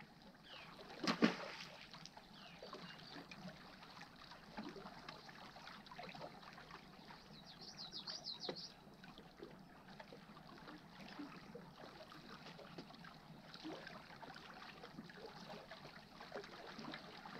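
Faint lapping of small waves against shoreline rocks, with a brief splash about a second in as a small fish thrown back lands in the water. A quick run of high bird chirps comes near the middle.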